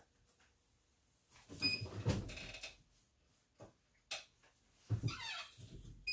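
Clunks, knocks and thumps of things being handled at a workbench, in two busy bursts with single knocks between them. A short high beep sounds twice, once in the first burst and again near the end.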